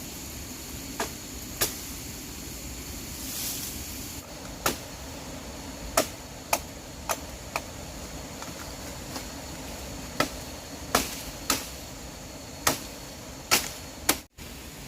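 About a dozen sharp knocks at uneven intervals over a steady background hiss, with a brief dropout near the end.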